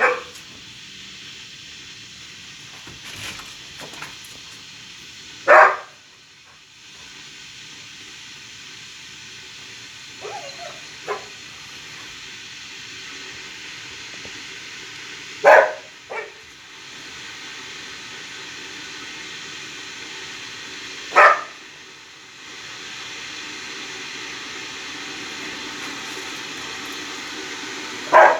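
A dog barking: single sharp barks a few seconds apart, with a few softer ones between, over a steady background hiss.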